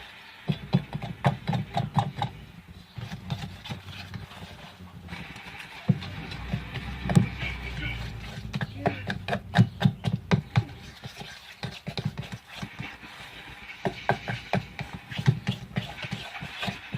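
Spoon stirring a thick flour and dish-soap mixture in a bowl: irregular bursts of tapping and scraping against the bowl, in three runs of strokes.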